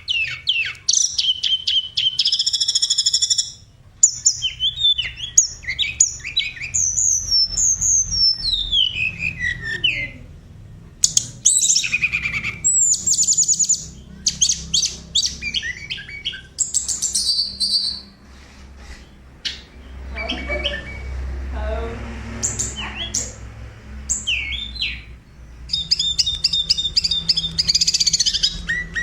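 A tledekan songbird singing a long, varied song: fast repeated trills, whistled notes sliding down in pitch, and quick chattering phrases. There is a brief lull about two-thirds through, then rapid trills start again.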